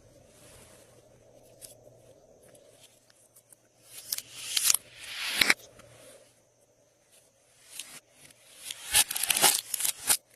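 Glossy slime being stretched and worked by hand, giving sticky pulls and pops in two spells. The first swells for about a second and a half and stops sharply. The second, a couple of seconds later, is a quick run of sharp pops.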